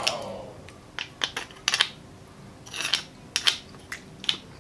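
Metal spoon clicking and scraping against a split, baked marrow bone while scooping out the marrow: a run of short, sharp clicks with a brief scrape about three seconds in.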